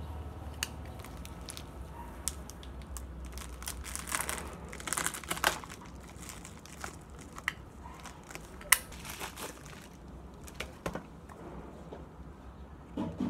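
Plastic bubble mailer crinkling and crackling as it is handled and opened by hand, with a box slid out of it. Irregular rustles and crackles, busiest a few seconds in, and a single sharp click about nine seconds in.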